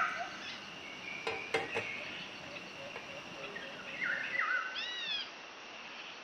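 Birds chirping in the background over a faint, steady high-pitched tone, with a few sharp clicks about a second and a half in.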